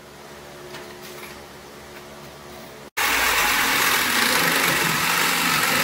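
Corded reciprocating saw cutting through steel square tubing. For about three seconds the motor runs with a steady whine; then, after an abrupt break, a much louder, noisy rasp of the blade through the metal.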